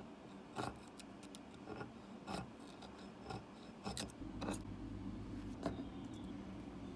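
Short, irregular scraping and cutting strokes, about seven of them, as a utility knife blade trims blue masking tape against the edge of a cast-iron part. A low hum comes in about four seconds in.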